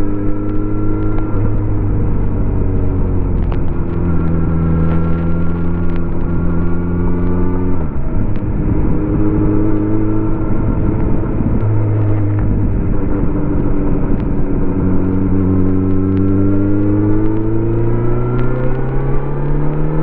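Stock 2018 Kawasaki Z900RS inline-four engine and exhaust under way, heard from the rider's seat. The engine note holds steady, breaks and changes about eight seconds in and again near the middle, then climbs steadily over the last few seconds as the bike accelerates.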